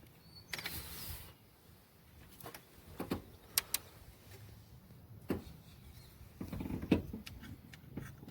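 Hand work on a pickup's dashboard: a short rustling scrape about half a second in, then scattered plastic clicks and knocks as the headlight switch and its trim are fitted.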